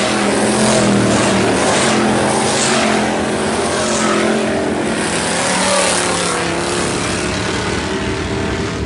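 Several IMCA Hobby Stock race cars' V8 engines running hard around a dirt oval, blending together, the sound swelling several times as cars go by.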